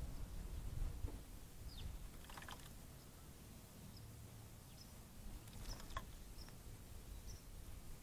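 Dark-eyed junco bathing in a shallow bird bath: a few faint small splashes of water, with several short high bird chirps.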